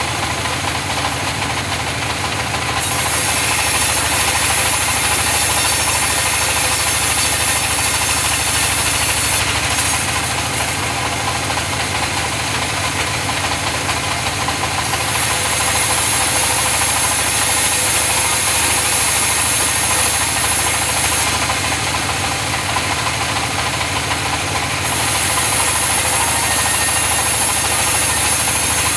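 Sawmill saw running steadily while cutting mahogany. A higher hissing cut sound comes in three times as the blade works through the wood: about three seconds in until nearly ten, again from about fifteen to twenty-one seconds, and from about twenty-five seconds on.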